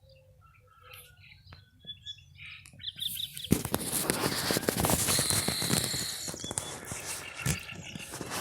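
Small birds chirping faintly, then, about three and a half seconds in, a sudden loud rustling and crackling that lasts several seconds and eases off near the end.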